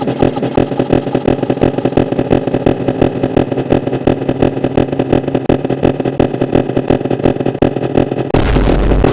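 Bus horn sound effect looped at an extreme, ever-doubling speed, so that the repeats blur into a dense, very fast stutter with steady pitched tones held beneath. About 8 seconds in, it switches abruptly to a louder, different mix with a heavy low end and warbling pitch glides.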